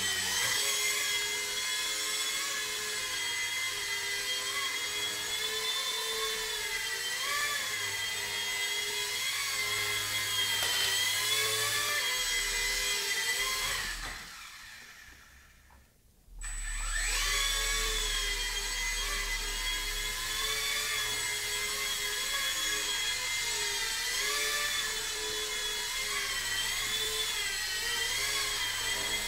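Blade MSR-X micro RC helicopter's electric motors and rotors whining, the pitch wavering up and down with the throttle. About 14 s in the whine winds down and dies away as it lands, then spools back up sharply about two seconds later for another takeoff.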